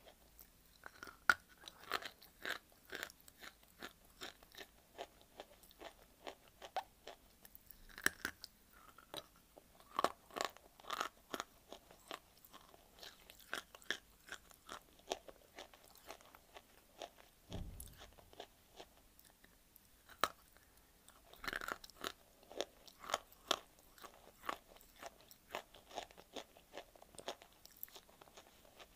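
Dry white clay being bitten and chewed: a continual, irregular run of sharp crunches and crumbling as the hard lumps break between the teeth. A single dull low thump comes a little past the middle.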